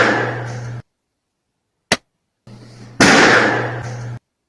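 Balloons bursting, compared two ways. An echoing pop trails away, then a short dry pop with no echo comes about two seconds in, the sound of a balloon burst inside an anechoic chamber. Then another pop follows with a long echoing tail about a second long, the sound of a burst in a space that reflects it.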